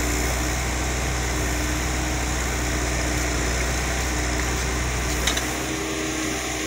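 A motor running steadily with a low hum and a few even tones; the lowest part of the hum drops away just after a sharp click about five seconds in.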